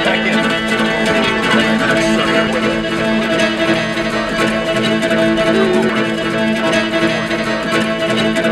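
Fiddle music: a bowed fiddle holding long, steady notes, played with other instruments.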